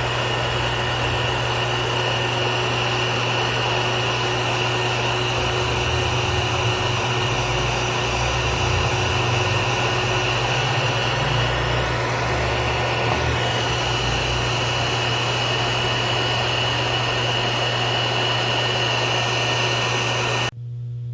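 Electric heat gun running steadily, its fan blowing with a low hum. It stops suddenly near the end.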